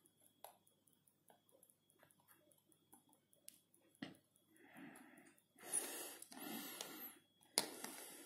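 Quiet hand-soldering on a perfboard: a few faint ticks of the soldering iron tip working a joint, then soft rustling and handling noise for a few seconds as the board is moved.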